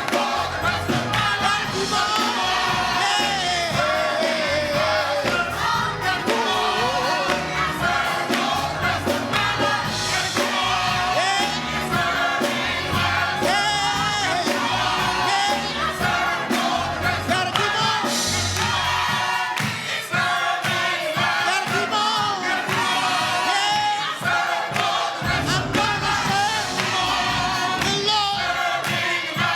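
Church choir singing a gospel song with instrumental accompaniment and a steady beat.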